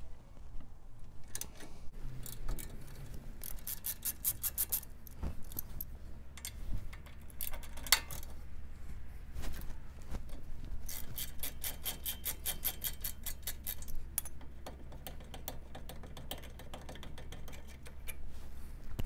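Hand ratchet clicking in quick runs as it loosens and backs out the two bolts holding the front brake caliper of a Dodge Ram 3500. There are two long runs of rapid clicks, about three and eleven seconds in, and one sharp knock of metal near eight seconds.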